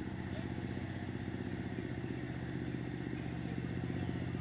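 An engine running steadily at a constant speed, with a fast, even pulse and no change in pitch.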